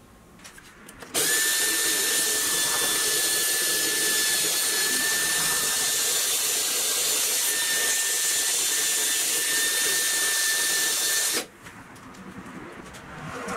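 Cordless drill running at steady speed with a constant whine, spinning an old wooden toy wheel on a screw mandrel while an abrasive pad scrubs the wheel's worn surface. It starts suddenly about a second in and stops shortly before the end.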